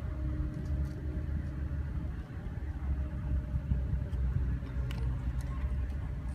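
Engine of a small fishing boat running steadily: a constant low rumble with a faint steady hum above it.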